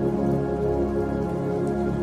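Slow new-age meditation music of long, held chords, layered over a light, steady patter of rain.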